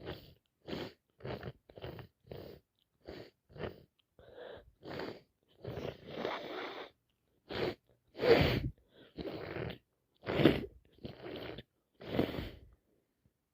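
A woman with a head cold sniffing in a run of quick, short sniffs, then sneezing several times, the two loudest sneezes in the second half.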